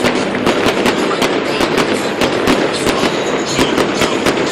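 Fireworks display going off in a rapid, continuous barrage: many sharp bangs and crackles a second over a steady rumble of overlapping explosions.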